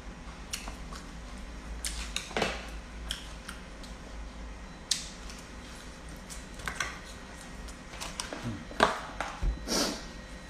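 Eating sounds: a spoon clicking and scraping in plastic food containers, with chewing and lip smacking as someone eats by hand. These are scattered short clicks, busier near the end.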